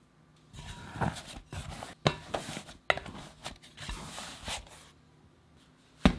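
Soft, first-proofed bread dough being pulled and peeled out of a glass bowl by hand: a sticky rustle with a few sharp clicks. About six seconds in the dough lands on the worktop with a single loud thud.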